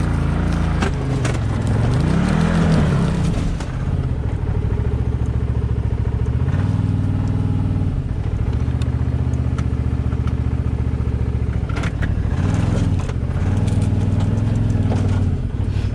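Can-Am Maverick Sport XRC side-by-side's V-twin engine revving up and down repeatedly while crawling over rocks, with a few sharp knocks and scrapes of rock against the underbody.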